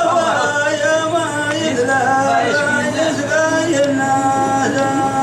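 Men singing Hadrami dan, a slow, winding unaccompanied vocal melody; about four seconds in the voice settles into one long held note.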